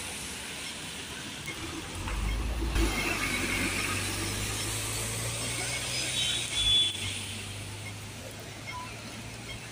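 City traffic on a rain-wet road: a steady hiss of tyres and rain, with a vehicle engine humming low from about two seconds in.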